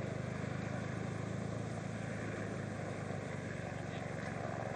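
Steady low engine drone with a fast, even pulse over a constant hiss.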